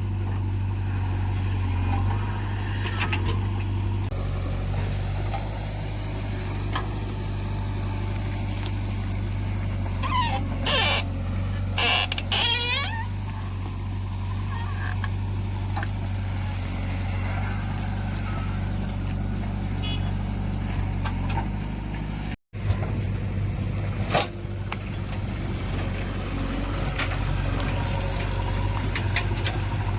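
Diesel engine of heavy earthmoving machinery running steadily with a low hum, with several short high squeals about ten to thirteen seconds in.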